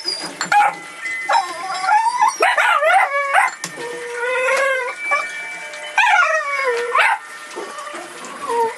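Puppies whining and howling in a run of high cries that slide up and down in pitch, some overlapping. There is a held cry near the middle and a long falling cry about six seconds in.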